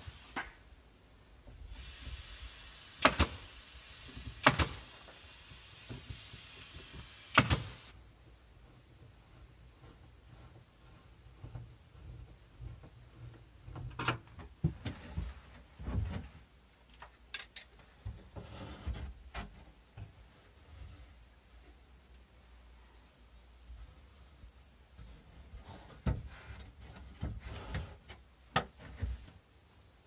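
Cordless nail gun whirring and firing three nails, about three, four and a half and seven and a half seconds in. After that, a steady high insect chirring from crickets, broken by scattered light clicks and knocks.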